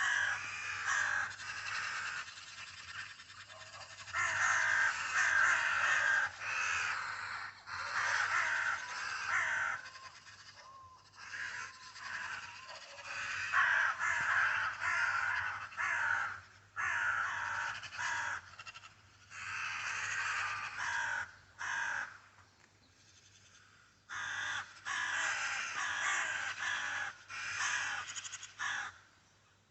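Corvids calling harshly over and over, in bouts with brief lulls about ten seconds in and again a little past twenty seconds.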